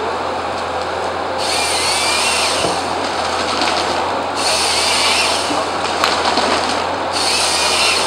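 Logman harvester's head chainsaw cross-cutting a felled stem three times in quick succession, each cut a high-pitched saw burst of about a second and a half, over the machine's steady diesel engine and hydraulics.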